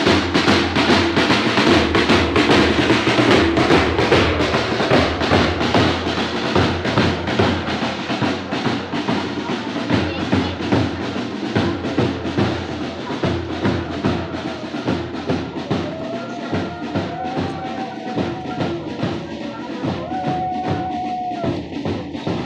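A marching band of side drums beaten with sticks in a steady, continuous marching rhythm. The drumming is loudest at first and grows somewhat quieter in the second half. Two short held tones sound over it near the end.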